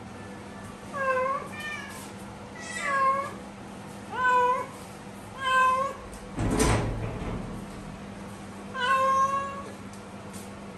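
Injured orange-and-white kitten meowing about five times, short calls that bend in pitch, spaced one to two seconds apart: the cries of a cat in severe pain. A brief noisy burst sounds about two-thirds of the way through, between the meows.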